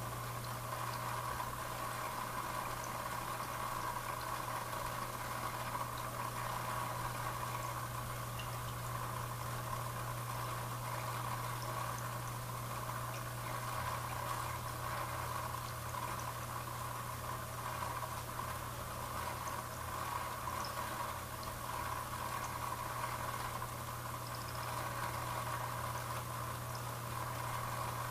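Aquarium filter running: a steady low hum with constant bubbling, trickling water.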